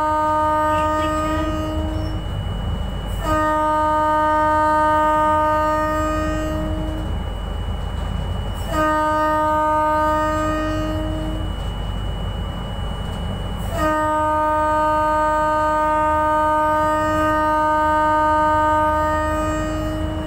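Locomotive horn sounding long warning blasts while running through thick fog. One blast is already sounding at the start and ends about two seconds in, and three more begin about 3, 9 and 14 seconds in, each lasting several seconds. Under the horn is the steady low rumble of the moving locomotive, heard from inside the cab.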